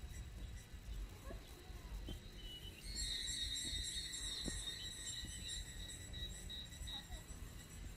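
Insects singing steadily in the trail-side vegetation as a high, even drone, with a louder, denser buzz joining in about three seconds in. A low rumble runs underneath, along with a few faint knocks.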